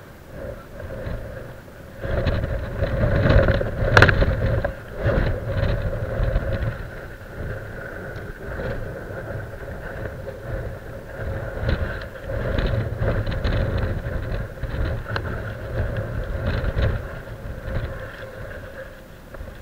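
Wind gusting on the microphone in uneven low rumbles over a steady hum, with one sharp click about four seconds in.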